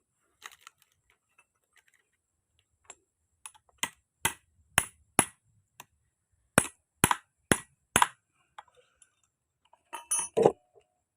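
Sharp hard taps or clicks: four about half a second apart, then after a short pause four more at the same pace, and a short clatter near the end.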